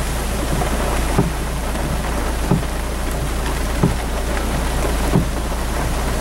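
Heavy rain falling steadily on a flooded street and pavement, with a soft low thump repeating about every second and a quarter.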